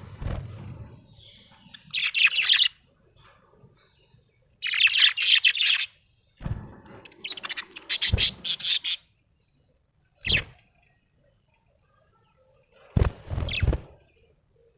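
Budgerigar chirping in about five bursts of rapid, high warbling chatter with short pauses between them. A few dull knocks come in among the chirps.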